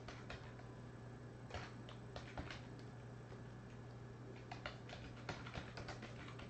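Faint typing on a computer keyboard: scattered key clicks, then a quicker run of keystrokes in the last couple of seconds.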